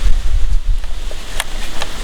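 Wind buffeting the microphone, a rumbling gusty noise, with one faint sharp click about one and a half seconds in.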